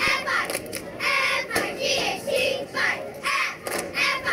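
A crowd of voices shouting and cheering while a youth football play runs. There are a couple of sharp knocks, one at the start and one about a second and a half in.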